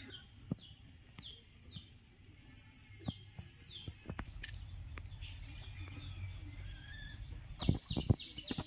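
Birds calling in short, falling chirps, repeated every second or so over a low steady rumble. Scattered sharp clicks, with a cluster of louder knocks and a quick run of chirps near the end.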